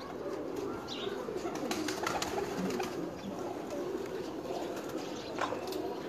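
Domestic pigeons cooing in a loft, with a few faint clicks.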